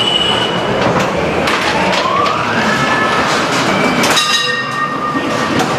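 Ghost train car rumbling along its track, with a rising squeal about two seconds in and several high steady tones after about four seconds.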